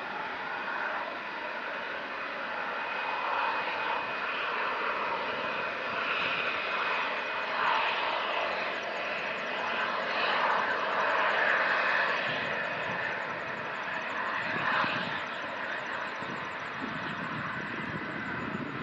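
Boeing 747SP's four jet engines running, a steady rushing noise with a high whine that swells and fades over several seconds.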